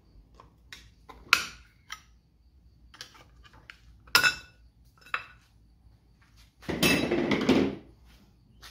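A small hand tool clinking and tapping against the metal wheel hub of an old reel mower, working a cotter pin loose: a few sharp separate clinks, then a longer metallic clatter of about a second near the end.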